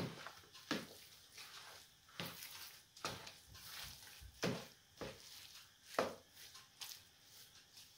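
A hand kneading moist bulgur mixture with egg in a plastic bowl: repeated wet squishing strokes, a little more than one a second.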